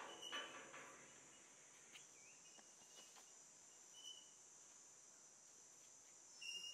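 Faint ambience: a steady high insect drone with a few short, scattered bird chirps. A brief louder sound comes right at the start.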